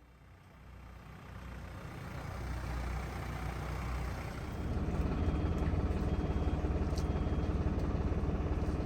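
A motor vehicle's engine running at low revs, with a steady rapid low pulsing. It fades in from near silence and grows louder over the first few seconds, then holds steady.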